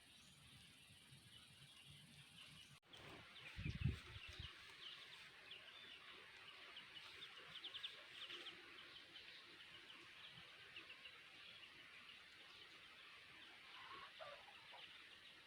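Faint, rapid high peeping of chicks, thickest in the first half. About four seconds in there is a short low bump, the loudest sound.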